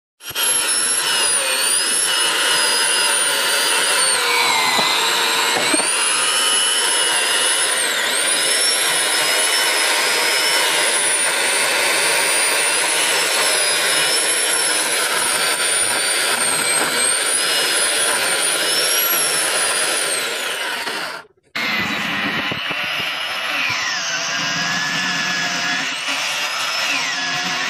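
Progen electric chainsaw cutting through a thick log: a steady motor whine and chain rasp, the whine dipping in pitch again and again as the chain bogs under load and then recovering. It cuts out suddenly about three-quarters through, then runs on cutting with a slightly lower whine.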